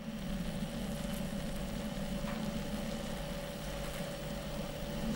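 A steady low hum with a thin steady tone above it, and two faint clicks, one a little over two seconds in and one near the end.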